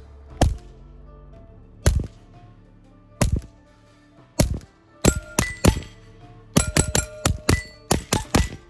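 Suppressed .22 LR pistol (Taurus TX22 Compact with a SIG suppressor) firing CCI Mini-Mag high-velocity rounds: about fifteen shots, four slow and evenly spaced, then quick strings near the end, with short metallic rings after many of them.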